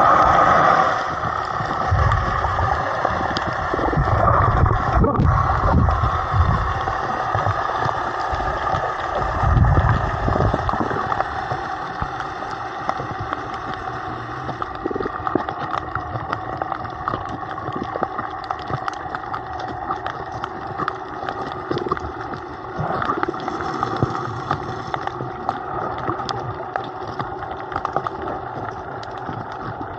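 Underwater ambience picked up by a submerged camera: a steady hum carried through the water with scattered crackling clicks, and low rumbling water movement around the camera in the first ten seconds.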